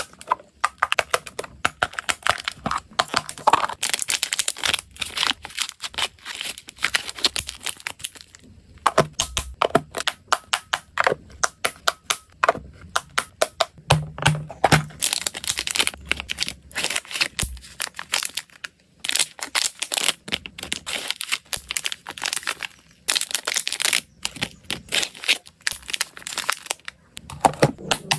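Plastic clip-lock food containers handled close to the microphone: latches clicking and dry hamster treats clattering and rattling inside. It is a dense run of quick clicks with two brief lulls.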